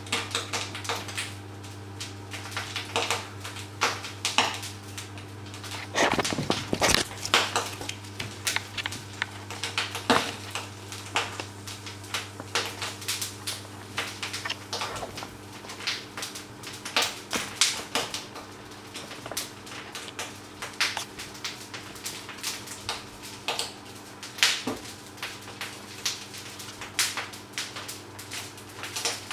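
A utensil clinking and scraping against a stainless steel pot as a thick food mixture is stirred, in irregular knocks and clicks, over a steady low hum.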